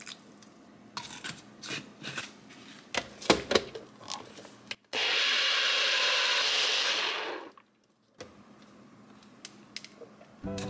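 Electric blender running steadily for about two and a half seconds while blending a smoothie, then stopping suddenly. Before it comes a series of kitchen knocks and clatter, a few of them sharp.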